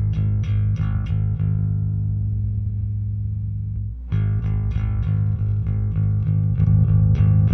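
Electric bass played through a vintage MTI-era Ampeg SVT tube bass amp with its two channels jumped together, into an Ampeg 8x10 cabinet. A run of quick picked notes, then one note left ringing for a couple of seconds, then fast picking again about four seconds in.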